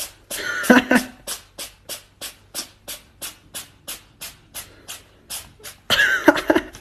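A steady beat of sharp clicks, about three a second, broken twice by short bursts of a voice: about half a second in and near the end.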